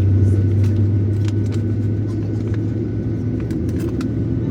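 Steady low hum and rumble inside the cabin of a Boeing 737-900ER airliner, from the aircraft's air-conditioning and onboard systems, with a faint steady high tone and a few light clicks.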